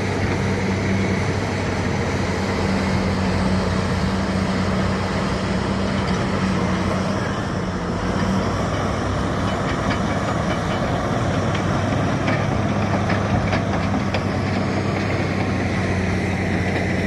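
Diesel engine of heavy earthmoving machinery running steadily, a constant low engine hum over a dense mechanical noise, with a few faint knocks.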